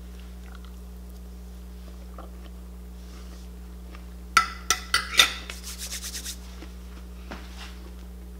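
A metal fork set down on a ceramic plate: a few sharp clinks about four and a half to five seconds in, then a quick rattle of lighter ticks as it settles. A steady low hum runs underneath.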